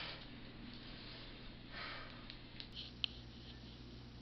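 Quiet room tone with a soft breath near two seconds in, then a few faint clicks from a flip phone's keys being pressed.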